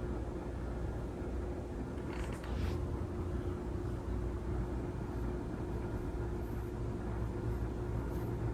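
Steady low rumble with a constant hum, like the ride noise inside a moving vehicle, with a brief hiss about two seconds in.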